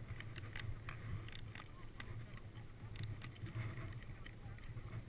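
Irregular crunches and rustles of powder snow, gloves and jacket as a seated snowboarder shifts about, picked up close by a helmet-mounted camera, over a low steady rumble.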